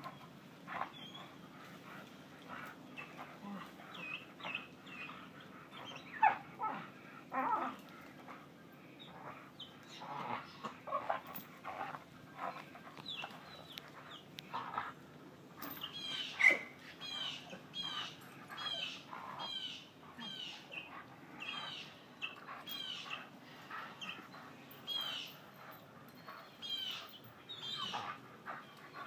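A young dog working a spring pole, leaping and tugging on the rope. Its tie-out chain clinks and rattles and there are short knocks throughout, two of them sharper about a quarter and halfway through. Through the second half comes a steady run of short high squeaks, about two a second.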